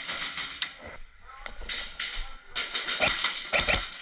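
Airsoft guns firing in rapid bursts of sharp clicks, with a short lull about a second in and heavier shots near the end.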